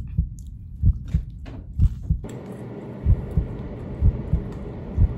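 Heartbeat sound effect: paired low thumps, lub-dub, about once a second, joined about two seconds in by a steady hiss.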